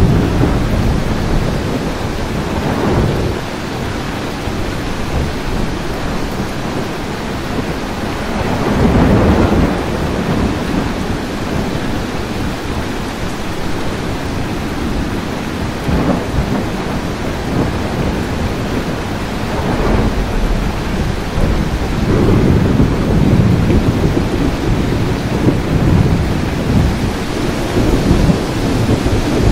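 Steady rain with thunder rumbling low several times: loudest about a third of the way in and again through the last several seconds.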